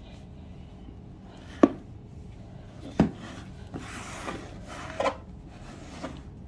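A rigid cardboard box being handled and turned on a tile floor: two sharp knocks as it is set down, then rubbing and scraping as it slides, with a few softer knocks.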